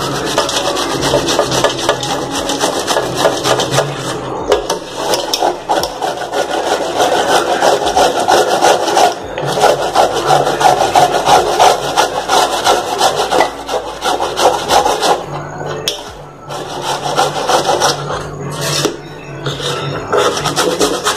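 Gourd flesh being grated by hand on a round stainless-steel grater: a continuous rasping made of quick back-and-forth strokes, easing off briefly about sixteen seconds in before carrying on.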